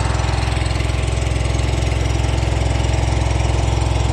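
Mini skid steer engine running steadily at a constant speed, an even rapid chugging with no change in pitch.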